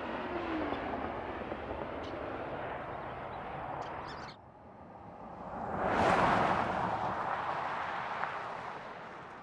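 Mercedes-Benz GLS 580 SUV driving past on an asphalt road. The tyre and engine noise of one pass fades with a short falling tone and cuts off suddenly about four seconds in. A second pass then swells to a loud peak about two seconds later and fades away.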